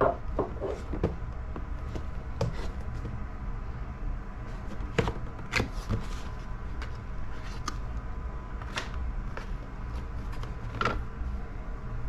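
Cardboard product box being opened and handled: scattered light taps, scrapes and rustles over a low steady background hum.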